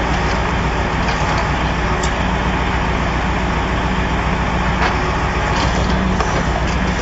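Truck engine running steadily with a low hum while it drives the hydraulic grapple crane, with a few faint clicks of metal.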